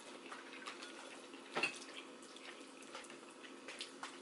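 Faint slurping of instant noodles, with a few light clicks of forks on plates; one slightly louder slurp about one and a half seconds in.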